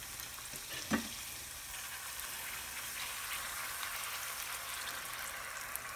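Puris of semolina and whole-wheat dough deep-frying in hot oil, a steady high-pitched sizzle, with one brief louder sound about a second in.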